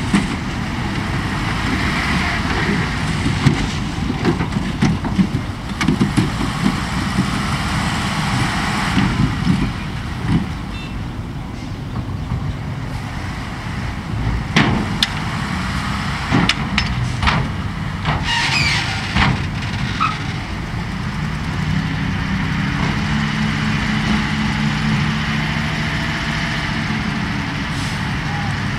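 Diesel dump truck engines running while the trucks tip their beds and unload dirt, a steady low rumble. Several sharp knocks sound in the middle, and a steady engine drone grows stronger near the end.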